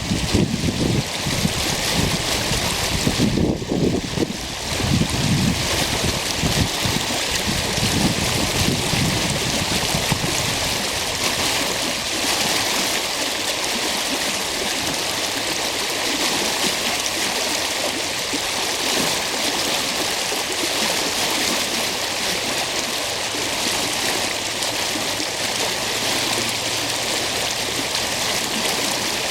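Stream water rushing in a steady, continuous hiss. Wind buffets the microphone in irregular low gusts through roughly the first ten seconds, then eases off.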